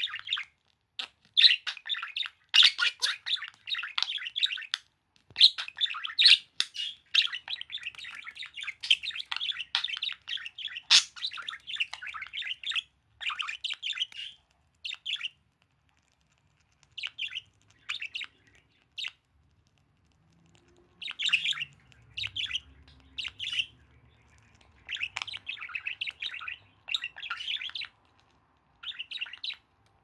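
A budgerigar warbles and chatters continuously for about the first thirteen seconds, then in short bursts with pauses between them. This is courtship chatter while it rubs against the owner's hand.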